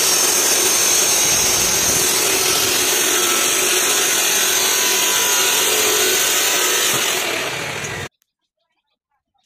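iBell electric chop saw's abrasive cut-off wheel grinding through a metal piece, a loud, steady, harsh grinding with a faint whine. It eases slightly near the end and stops abruptly about eight seconds in.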